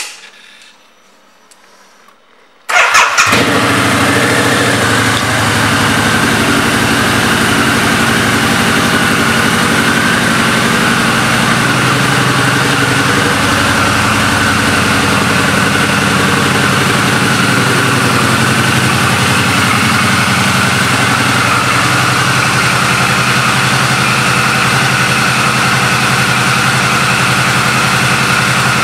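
A 2003 Harley-Davidson V-Rod's liquid-cooled Revolution V-twin is started after a short click, catching at once with a brief rise in level. It then settles into a steady idle.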